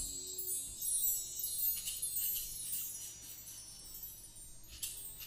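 Bar chimes (mark tree) ringing out after a sweep: a shimmering cascade of high tinkling tones that fades away over about two seconds. From about two seconds in come light, evenly repeated shaker strokes, from a woven caxixi basket shaker.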